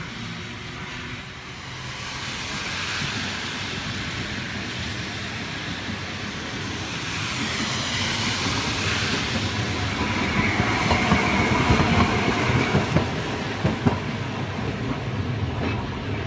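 A Hakodate city tram streetcar running on wet rails, building to its loudest as it passes close by, with its wheels knocking over the rail joints and a brief whine. It then pulls away.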